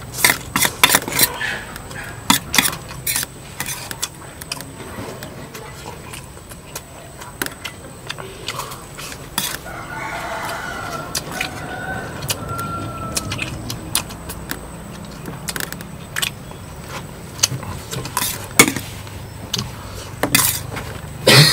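Rooster crowing once, about ten seconds in, over a string of sharp clicks and clinks.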